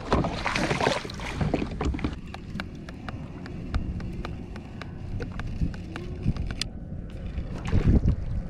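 Water slapping against a plastic fishing kayak on open ocean, with wind on the microphone. A splashing rush comes in the first second, followed by a string of sharp, irregular clicks over several seconds.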